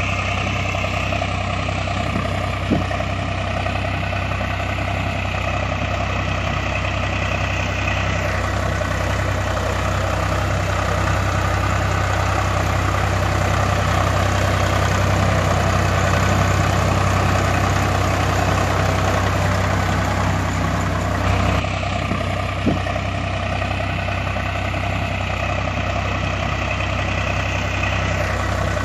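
Heavy diesel-type engine idling steadily, a low rumble with an even, regular throb.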